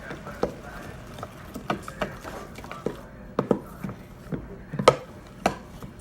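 A spoon stirring a thick glue slime mixture in a bowl, knocking and scraping against the bowl in sharp, irregular clicks about every half second.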